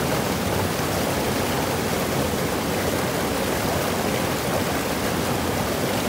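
Creek water spilling over a small concrete weir: a steady, unbroken rush of falling water.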